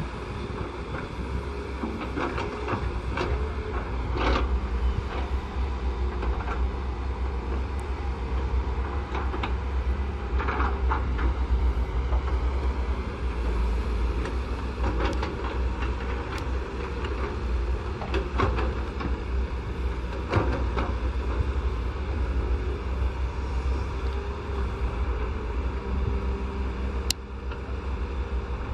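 Hydraulic crawler excavators' diesel engines running steadily under digging load, with several clanks and scrapes at irregular intervals as the bucket and boom work the soil.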